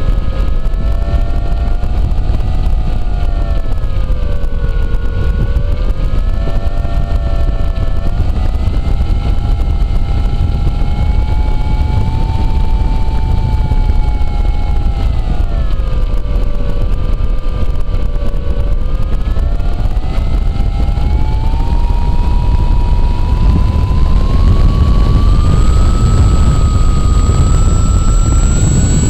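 Electric motor and propeller of a Wicked Wing flying wing, heard from an onboard camera as a whine whose pitch dips twice and then rises steadily near the end as the throttle changes. Heavy wind rumble on the microphone runs under it.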